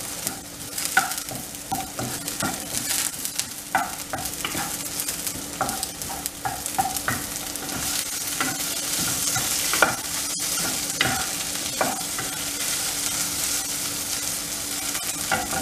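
A wooden spatula scraping and stirring boiled potato pieces in a nonstick pan, in short repeated strokes, over a continuous sizzle of hot oil and ghee frying.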